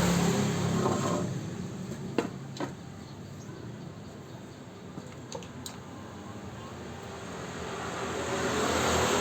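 Inverter welding machine powered on for a test after a repair, its cooling fan running with a steady whir that is louder at the start, dips, and swells again near the end. A few light clicks in between.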